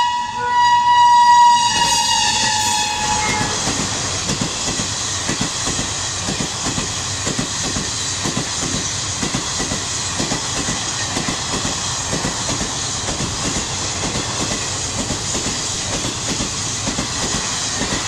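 A WAP-7 electric locomotive's high-shrill horn sounding a long blast that stops about three seconds in. Then a passenger train's LHB coaches run past at speed, their wheels clattering over the track in a steady, even rhythm.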